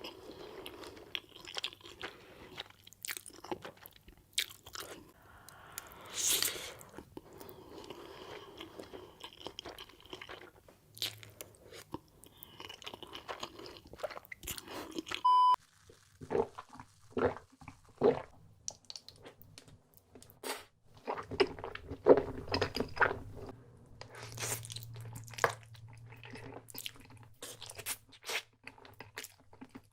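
Close-miked eating sounds of spaghetti being eaten ASMR-style: chewing and biting, with many short sharp mouth clicks and smacks. About halfway there is a brief beep where one clip cuts to another.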